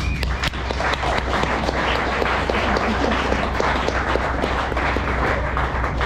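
Audience applauding: many hands clapping at once for about six seconds.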